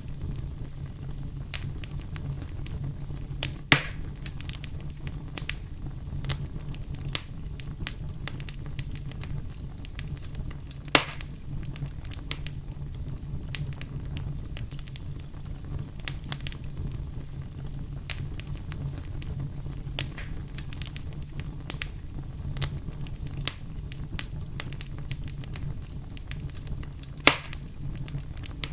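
Wood campfire burning: a steady low rumble of flames with frequent small crackles and three louder pops from the burning wood, about four seconds in, about eleven seconds in and near the end.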